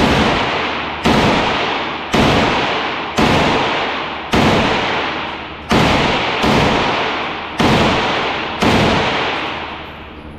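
Gunshots fired one at a time on an indoor shooting range: eight sharp reports, roughly one a second, each followed by a long echoing decay.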